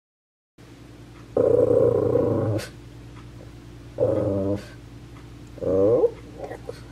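A dog's drawn-out whining cries close by, three of them, the first about a second long and the last bending in pitch, over a steady low hum.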